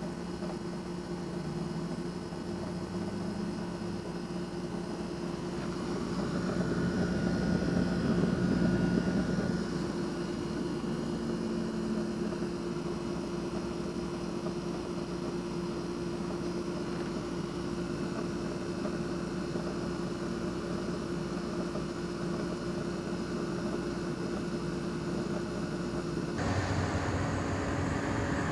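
Steady low machine drone with a constant hum, a little louder for a few seconds early in the first half, and changing abruptly near the end.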